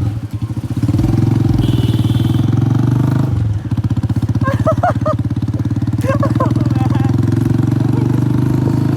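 Honda CG 125's single-cylinder four-stroke engine running loud through a burst silencer, its firing pulses clearly heard. The note dips briefly about a second in and again about three and a half seconds in.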